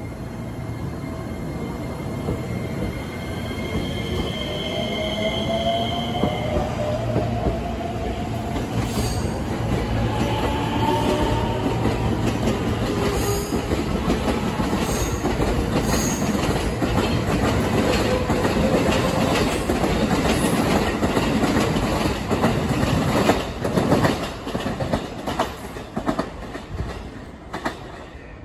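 A ten-car JR West 225 series and 223 series electric train pulls out and accelerates past. The inverter-driven traction motors whine, rising in pitch, over the rumble and clack of wheels on the rail joints. The noise falls away near the end as the last car clears.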